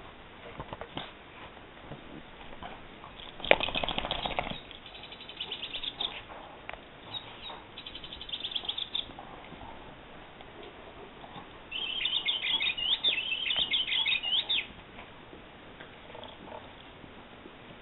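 A dog's squeaky toy bird being chewed, giving several bursts of quick, high squeaks. There is also a brief, louder rustling thump about three and a half seconds in.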